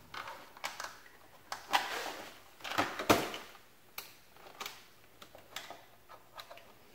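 Hands handling cables and fittings in a plastic watertight box: scattered, irregular light clicks, taps and knocks, the loudest about three seconds in.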